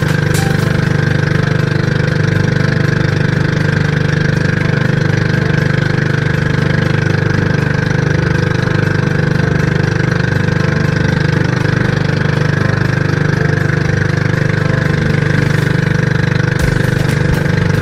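Small boat engine of an outrigger fishing banca running steadily as the boat travels between fishing spots.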